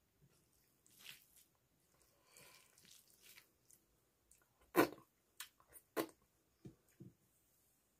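Fingers mixing and squishing dal and rice on a steel plate, then a handful eaten with a few short, sharp wet mouth smacks, the loudest about five and six seconds in.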